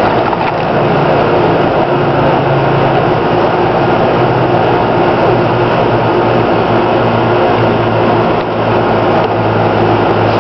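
Loud, steady machine hum with a low buzz.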